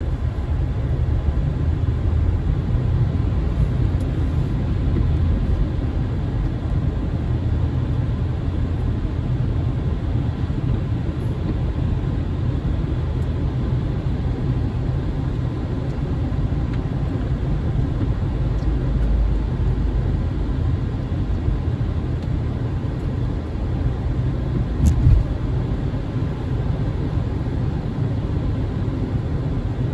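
Steady low rumble of a car driving on a wet road, engine and tyre noise heard from inside the cabin, with a single brief thump near the end.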